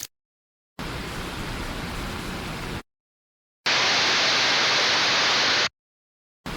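AI-generated rain sound effects played back one after another: short clips of steady rain hiss, each about two seconds long, with silence between them. The second clip is louder and brighter than the first, and a third starts near the end.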